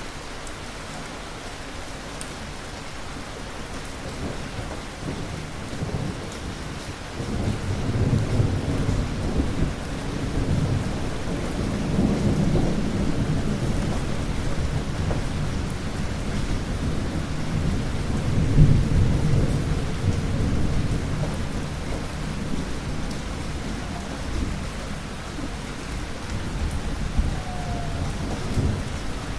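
Thunder rolling over steady rain: a deep rumble builds about a quarter of the way in, swells twice and fades out near the end, with the hiss of rainfall underneath throughout.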